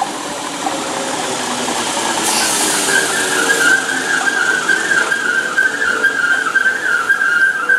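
London Overground electric multiple unit running close past along the platform, with a brief hiss about two seconds in. A high, slightly wavering metallic squeal from its wheels and brakes starts about three seconds in and holds to the end.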